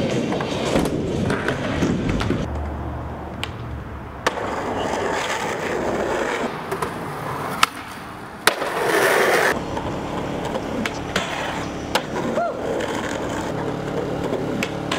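Skateboards on concrete: urethane wheels rolling, with sharp clacks of boards popping and landing on several tricks. The loudest is a hard landing about eight and a half seconds in, followed by about a second of louder rolling.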